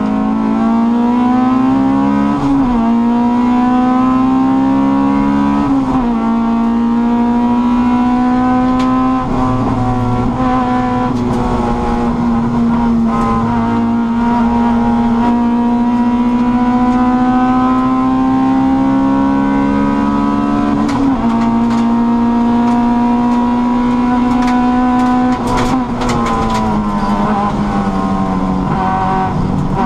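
Honda Cup race car's engine at high revs, heard from inside the cabin: the revs climb and drop back at two quick gear changes in the first few seconds, hold high and almost steady for a long stretch, dip at another shift about two-thirds through, then fall away near the end.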